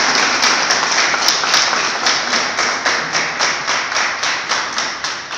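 Audience applauding, with one clapper close by standing out at a steady rhythm of about three claps a second. The applause thins out near the end.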